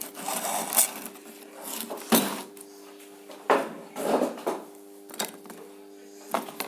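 Irregular knocks, clicks and scrapes of tools and heavy copper wire being handled at a workbench while the wires are prepared for soldering, about half a dozen in all, over a steady low hum.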